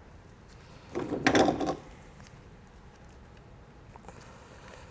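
Gloved hands handling wires and a crimping tool while fitting a yellow spade terminal: a short clattering rustle about a second in, then only faint small clicks.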